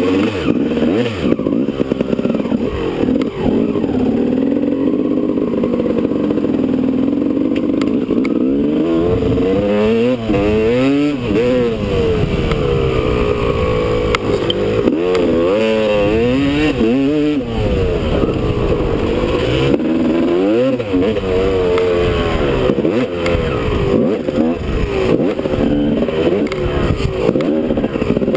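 Two-stroke Honda motocross bike engine under way, revving up and backing off again and again as the rider accelerates and shifts around the dirt track.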